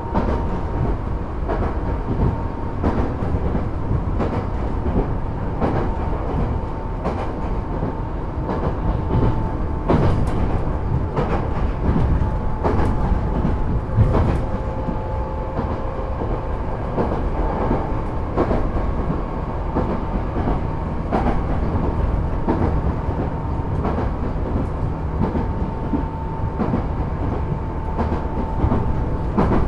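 JR 205 series electric multiple unit running at speed on the line: a steady rumble, with the wheels clacking over rail joints at irregular intervals and a thin steady whine.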